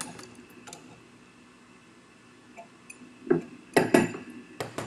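Metal gas-fitting parts clinking and knocking as they are handled and set down: a couple of sharp clicks at the start, a quiet stretch, then several sharp clinks with a brief metallic ring in the last second and a half.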